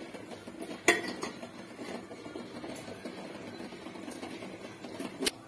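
Kitchen clatter: a sharp metal clink about a second in and another just before the end, over a faint steady background.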